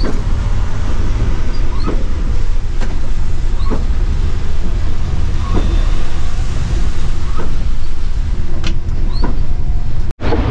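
Scania multi-axle bus running at road speed, heard from the driver's cab: a steady low rumble of engine and tyres on a wet road, with a few faint short ticks and knocks. The sound cuts out for an instant near the end.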